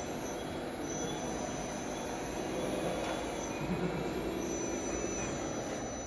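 Radio-controlled construction models working: a steady mechanical rumble with faint high electric-motor whines that rise and fall as the models drive and move.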